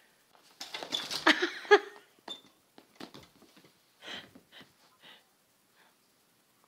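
Kittens play-fighting on a fabric sofa: a noisy burst of scuffling and scratching with small clicks about half a second in, then a few short scuffs and rustles that die away.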